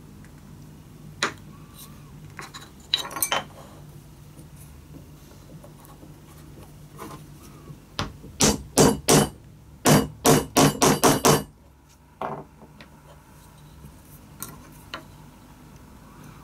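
Small hammer tapping a bent wire staple into a wooden knife handle: about ten sharp taps in two quick runs about two-thirds of the way in, after a few light clicks of the wire being handled.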